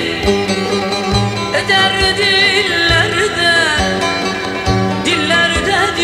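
Background music in a Turkish folk style: plucked strings over a steady drum beat, with a wavering, ornamented melody line.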